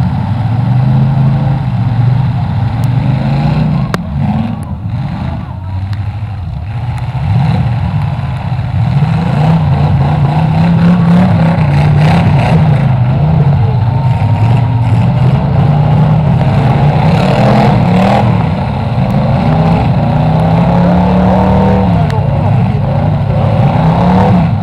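Demolition derby cars' engines revving up and down as they manoeuvre, several engines overlapping, with a few sharp knocks among them.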